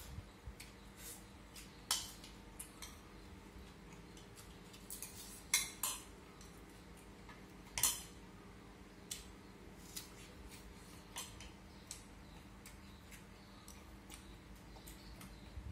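Chopsticks clicking and scraping against a ceramic rice bowl while eating: scattered light clicks, with louder knocks about two, five and a half, and eight seconds in.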